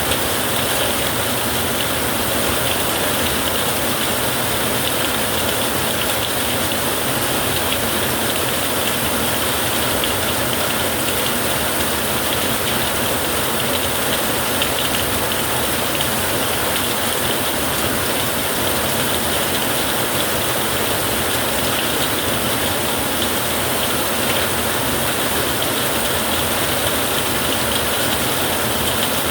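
Rain falling on a tin roof: a steady, even hiss with no breaks or claps.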